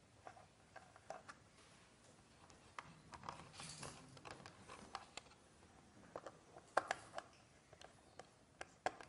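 Faint clicks, taps and rustling of hands fitting electrical wire to the screw terminals of switches and sockets on a wooden board, with a brief scraping rustle a few seconds in and a sharper click about two-thirds of the way through.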